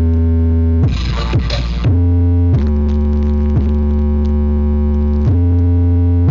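Bass-heavy electronic music played loud through a large sound system: long held synth notes over a deep bass, the notes changing every second or two.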